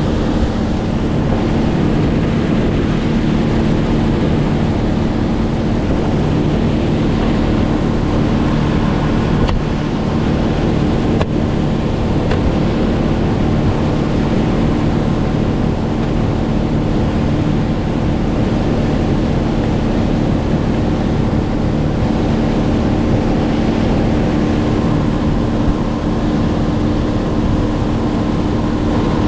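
An engine running steadily at constant speed, a continuous drone with rushing wind and water noise over it.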